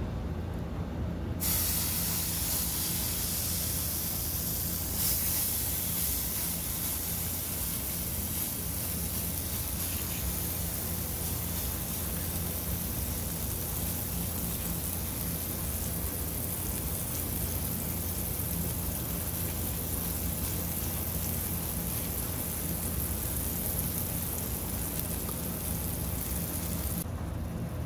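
Raw chicken burger patty sizzling in hot oil in a nonstick pan, with a steady hiss that starts about a second in as the patty goes into the pan and cuts off suddenly near the end.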